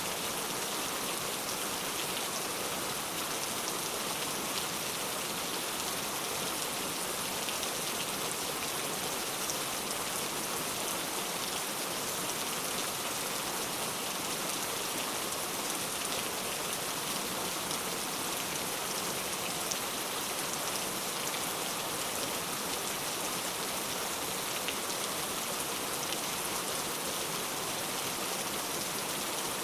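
Heavy rain falling steadily, a constant hiss with scattered individual drop ticks.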